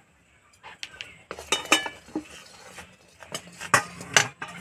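Metal spatula and metal kadai clinking and scraping as the pan of thick cooked jaggery syrup is taken off the fire and stirred. There are several sharp metallic clinks, a few of them ringing briefly, and the loudest come near the end.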